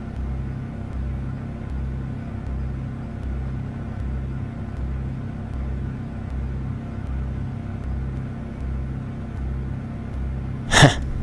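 Steady low machine hum with an even, pulsing rumble. A short sharp sound cuts in near the end.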